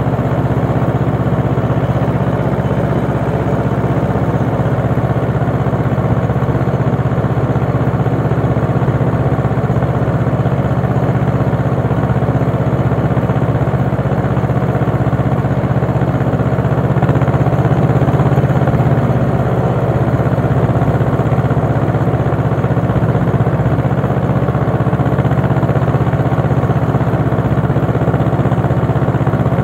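Ursus tractor's diesel engine running steadily as the tractor drives across a tilled field.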